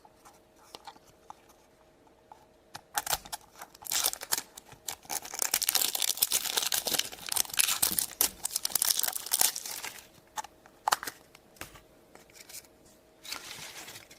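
A toy's blind-bag wrapper being torn open and crinkled by hand, a dense stretch of crackling from about three seconds in until about ten seconds in, then scattered rustles and clicks and a short crinkle near the end.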